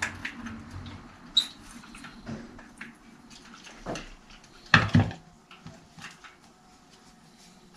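Small metallic clicks and scrapes of a thin screwdriver working at a partly dismantled Sachs Maillard freewheel on a bicycle rear hub, with a louder clatter of knocks about five seconds in.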